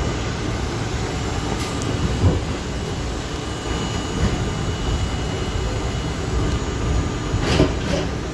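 Interior of an R32 subway car moving along an elevated station platform: a steady low rumble of wheels and running gear with a faint steady high tone over it. A few sharp knocks from the car, the loudest near the end.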